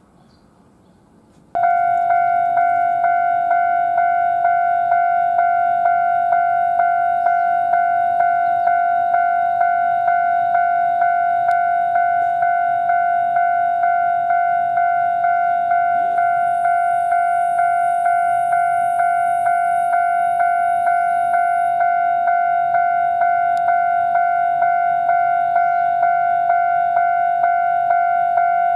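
Railway level-crossing warning bell starting about a second and a half in and ringing on with an even, rapid pulse of one steady pitch: the crossing signal warning of an approaching train.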